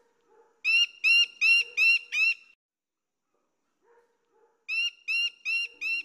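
Rufous woodpecker calling: two runs of five quick high notes, about three a second, the second run beginning a little past halfway.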